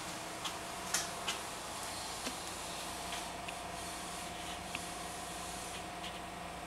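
Room tone in a small room: a steady faint hum with a thin whine, broken by several light clicks and taps, the sharpest about a second in.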